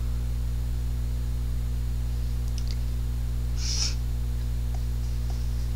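Steady low electrical mains hum, with a few faint clicks and a brief rustle a little before the middle as small makeup items are handled.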